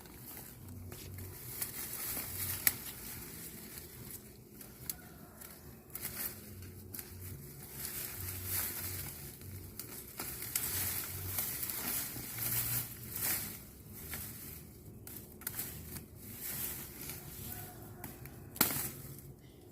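Crop stalks being reaped: irregular crisp crunching and rustling cuts, with a couple of sharper snaps.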